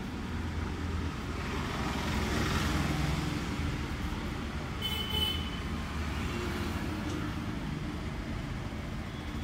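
Steady road-traffic rumble, swelling for a couple of seconds early on, with a brief high tone about five seconds in.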